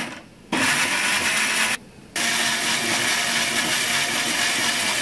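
Countertop electric jar blender grinding tomatoes and spices with a little water into a paste, switched on in pulses. It starts about half a second in, stops briefly after just over a second, then starts again and runs steadily.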